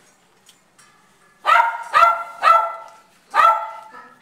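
Border collie barking four times, the first about a second and a half in, the next two in quick succession and the last a second later.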